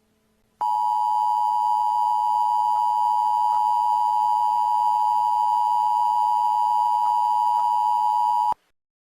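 Emergency Alert System two-tone attention signal, the 853 Hz and 960 Hz tones sounding together as one steady alarm. It starts about half a second in and cuts off suddenly about eight seconds later.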